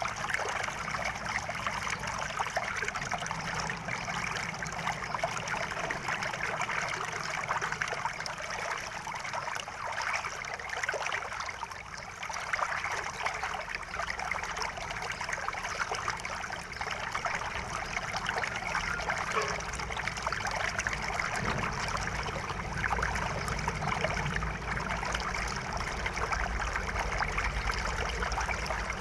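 River water flowing in a steady rush, with a low rumble coming up under it in the last several seconds.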